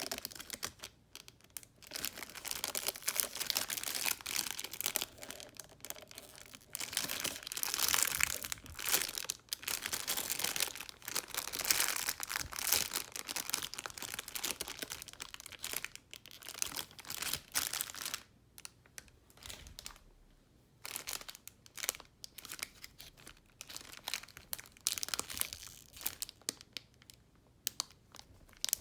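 Plastic packaging crinkling and crackling in irregular bursts as it is handled, with a few short pauses.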